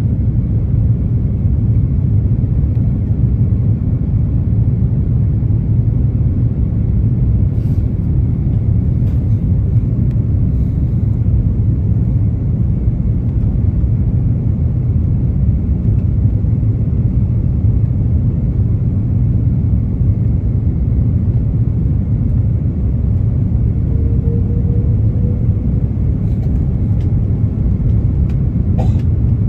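Airbus A330-300 cabin noise in flight: the engines and the airflow over the fuselage make a steady low rumble, heard from a window seat over the wing. A faint short tone comes about three-quarters of the way through, and a few small clicks come near the end.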